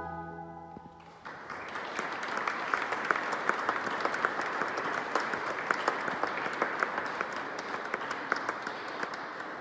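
Pipe organ's last low held note dying away, then the audience breaking into applause about a second in, many people clapping steadily.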